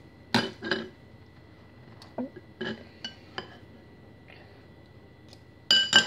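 Dishes clinking: a handful of light, ringing knocks of glass or crockery, spaced out, then a louder cluster of clinks near the end.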